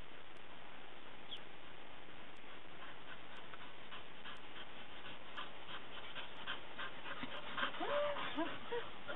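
A dog whining and whimpering in several short calls that bend up and down near the end, as it comes back from a game of fetch. Before that, a quick rhythmic pattern of short sounds grows louder over a steady hiss.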